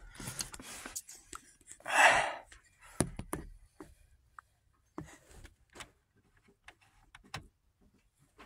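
Scattered light clicks, taps and rustles from a hand and phone moving around under a truck's dashboard, with one louder breathy rush of noise about two seconds in.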